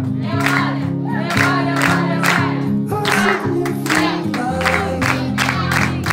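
A worship song: singing over a backing of held low chords that change every second or so.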